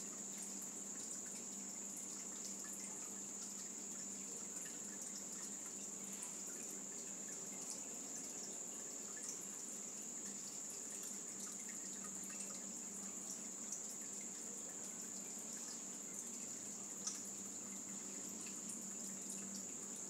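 Faint, steady background ambience: a constant high-pitched hiss with a few faint scattered ticks. The heron makes no call.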